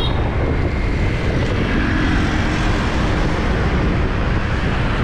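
Steady rush of wind on the microphone and road noise from riding a motorbike through city street traffic, with the hum of other motorbikes' engines around.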